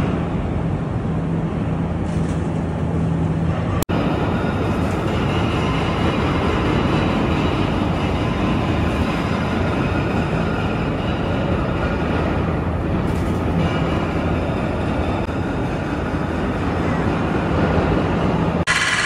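Steady, loud mechanical rumble with a constant low hum, broken by a brief dropout about four seconds in.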